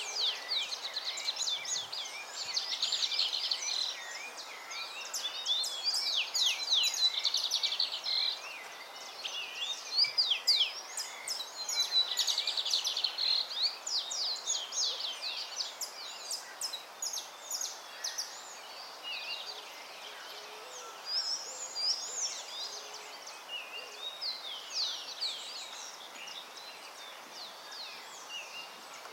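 Songbirds singing: a dense run of high chirps, quick down-sweeping notes and fast trills, thinning out toward the end.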